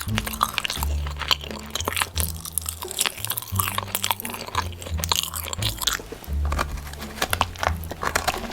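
Close-miked crunching and chewing of crunchy food, many irregular sharp crackles, over background music with a low bass line.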